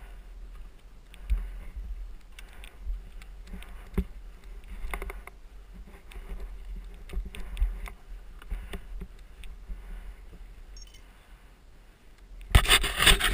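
Helmet-mounted camera scraping and knocking against mud and sand, with scattered thuds and a low rumble and no engine running. Near the end comes a loud rushing scrape as the helmet and bike are moved.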